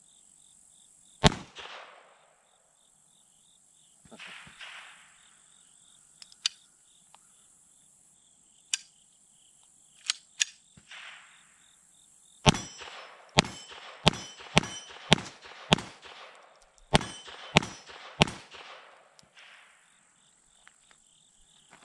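.22 rimfire Chiappa 1911-22 pistol firing: one shot, a few scattered quieter cracks, then a quick string of about nine shots about twelve to eighteen seconds in.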